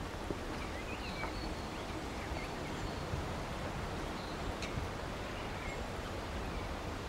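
Outdoor background ambience: a steady, even hiss with a few faint, short bird chirps scattered through it.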